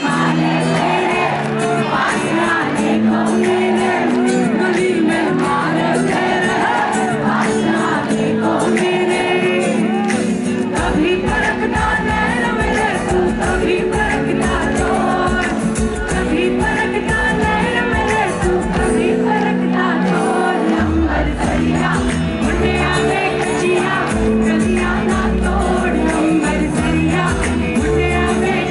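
Live band concert heard from the audience: a woman sings lead over drums, electric guitar, bass and keyboards. The heavy low bass and drums come in about eleven seconds in.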